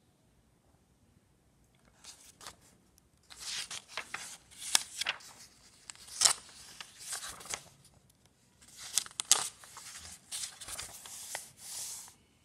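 Paper pages of a diary being turned by hand: rustling with sharp flicks and flaps of the sheets, starting about two seconds in, with a brief pause about two-thirds of the way through.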